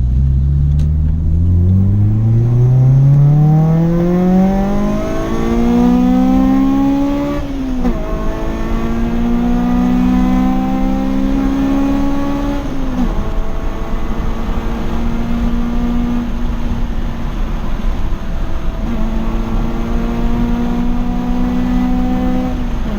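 Honda Civic Type R EP3's 2.0-litre i-VTEC four-cylinder engine pulling hard under full acceleration. The revs climb steadily for about seven seconds, then drop at an upshift, climb again to a second upshift about thirteen seconds in, and then run high and fairly steady, easing briefly, with another shift right at the end.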